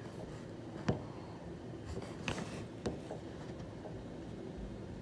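Quiet room tone with three short soft clicks, about one, two and a quarter, and nearly three seconds in, over faint rustling.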